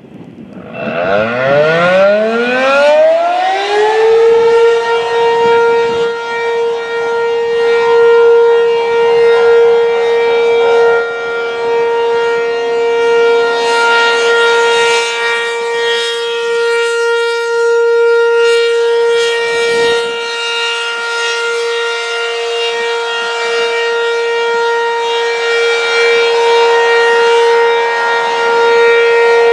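ACA P-15 electromechanical outdoor warning siren starting up about a second in, winding up in pitch over roughly three seconds, then holding one steady tone for a full test.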